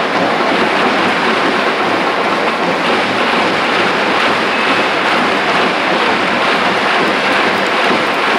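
Large football-stadium crowd making a loud, steady wash of noise in which no single voice stands out.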